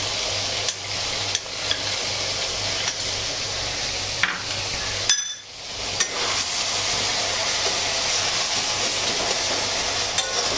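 Diced tomatoes frying in oil in a metal kadhai, a steady sizzle, while a metal spatula stirs them with scattered scrapes and clinks against the pan. The sound drops out briefly about five seconds in.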